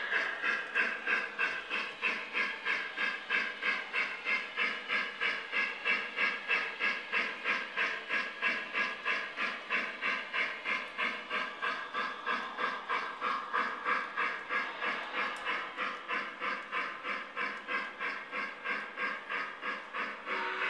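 Lionel Legacy K4 model steam locomotive's onboard sound system playing a steady steam exhaust chuff through its small speaker, about two and a half chuffs a second, over the model's running noise on the track.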